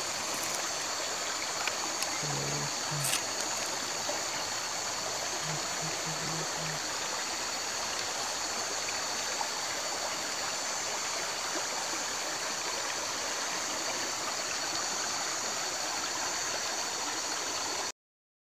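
Small jungle creek running steadily at night, with a continuous high-pitched insect chorus over it; both cut off suddenly near the end.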